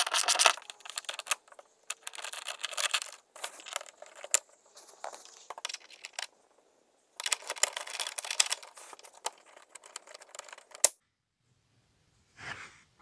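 A hand-held socket driver working screws out of plastic interior trim: bursts of rapid metallic clicking and scraping that stop about eleven seconds in. A brief soft rustle follows near the end.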